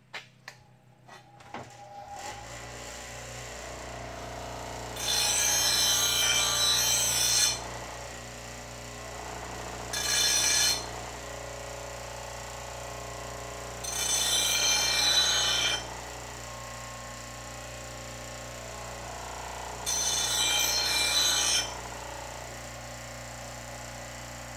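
Bench grinder starting up, its motor reaching a steady hum about two seconds in, then a steel mower blade pressed to the wheel four times, each grind a loud hiss lasting from about one to two and a half seconds. The grinding takes the rough edges off a worn mulching blade.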